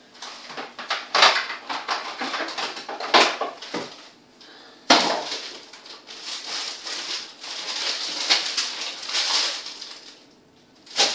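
Rummaging through a freezer: frozen tubs and packets knocking and clattering, with three sharper knocks in the first five seconds, then several seconds of rustling and scraping.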